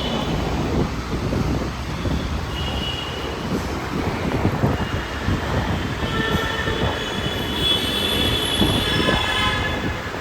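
Metro train running on its rails with a steady rumble, its wheels squealing in high thin tones now and then, most strongly in the second half.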